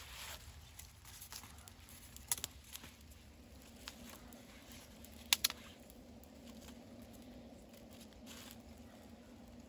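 Small kindling fire of dry leaves and wood splinters catching under a flat stone: a faint crackle with a few sharp snaps, the loudest a pair about five seconds in.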